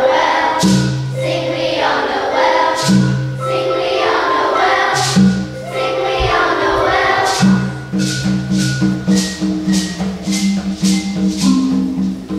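A children's choir singing over low held bass notes; about halfway through, the singing stops and a shaker plays a steady beat, about two or three shakes a second, over the bass line.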